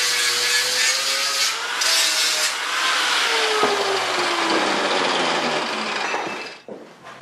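Angle grinder with a flap disc grinding down welds on a steel frame, a steady rasping whine. About three and a half seconds in, the grinder's pitch falls away.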